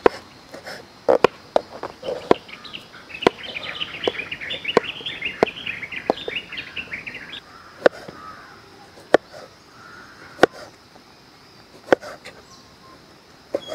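Steel kitchen knife chopping through soft fruit onto a wooden cutting board: sharp single knocks, roughly one a second and unevenly spaced. From about two to seven seconds in, small birds chirp rapidly in a dense chatter.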